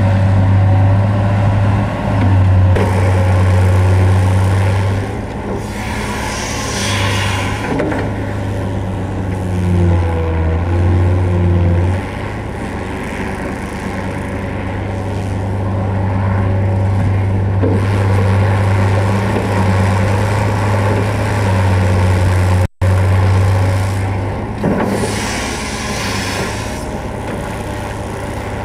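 NOBAS UB 1233 crawler excavator's diesel engine running under load while digging, its steady low drone dipping and rising repeatedly as the hydraulics work. A rushing, rattling noise comes in twice, about a quarter of the way in and again near the end.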